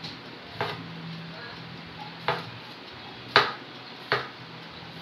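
A cleaver chopping through cucumber onto a wooden cutting board: four sharp knocks at uneven intervals, the loudest about three and a half seconds in.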